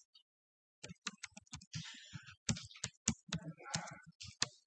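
Typing on a computer keyboard: a quick run of keystroke clicks that starts about a second in.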